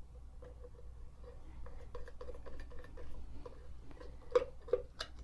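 Light metallic clicking and ticking from a Singer 223 sewing machine's parts being handled, fitting the back plate and turning its thumb screw, with two sharper clicks near the end.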